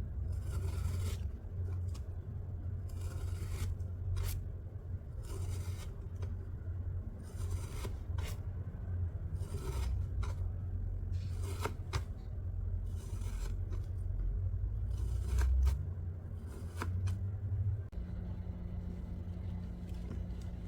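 Sand being scraped and cut in a series of short gritty strokes, about one every second or two, with a few sharp clicks among them and a low hum underneath.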